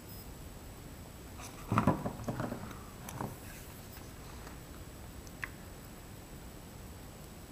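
Handling noises of a smartphone and its USB cable on a wooden tabletop: a short burst of rustling and knocking about two seconds in, a softer one about a second later, and a single light click past the middle.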